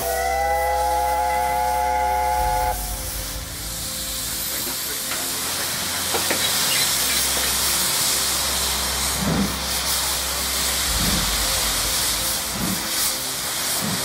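USATC S160 steam locomotive sounding its chime whistle, several notes held together for about three seconds, then a loud steady hiss of steam from its safety valves and open cylinder drain cocks as it gets under way. A few slow exhaust beats come through in the second half.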